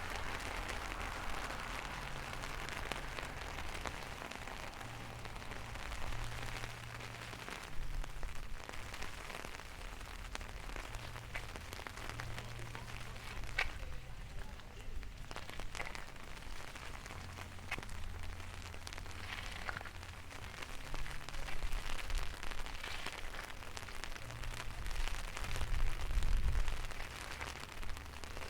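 Rain falling steadily, with scattered sharp drop hits over an even hiss and a low rumble underneath.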